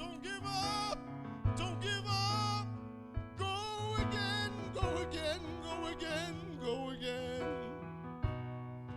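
Church keyboard playing sustained chords over a low bass line, with a voice singing long, wavering held phrases over it.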